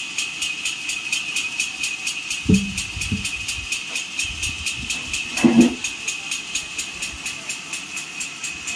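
Sawmill machinery running steadily with a fast, regular ticking, about four or five ticks a second. Two heavy thuds come about two and a half and three seconds in as a log is dropped onto the sawdust-covered ground.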